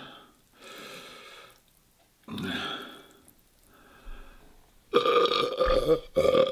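A man burping several times, the last belch the longest and loudest, as he tries to make room in a stomach full of spicy noodles and milk.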